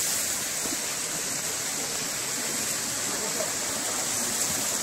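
A steady rush of moving water, an even hiss with no rhythm or pitch.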